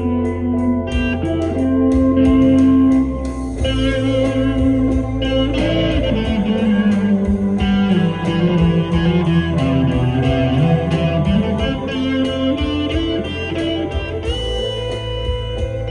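Epiphone Les Paul Custom electric guitar played through an amplifier: a lead line of single notes, several of them bent or slid up and down in pitch, over a steady low accompaniment.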